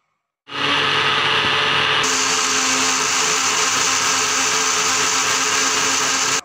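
Countertop electric blender running at speed, pureeing watermelon chunks into juice. It starts abruptly about half a second in, shifts in tone about two seconds in, and cuts off suddenly at the end.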